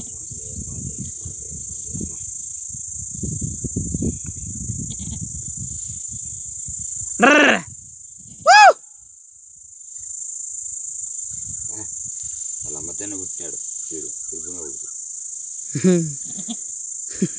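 A goat in labour bleats twice loudly about halfway through, over a steady high chirring of crickets, with rustling of grass and handling earlier on as her kid is being pulled out.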